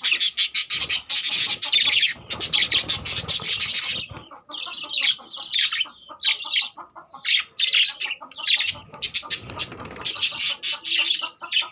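A flock of budgerigars chattering: a dense stream of rapid, high chirps for about four seconds, then separate chirps and squawks.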